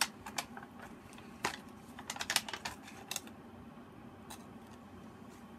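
Cardboard toy box handled and turned over in the hands: a run of small clicks and rustles over the first three seconds, then one more click about four seconds in.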